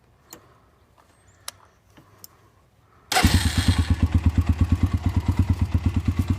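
Honda TRX 300EX ATV's single-cylinder four-stroke engine, fitted with an FMF Powercore 4 muffler, starting about three seconds in after a few faint clicks. It catches at once and settles into a loud, fast, even idle.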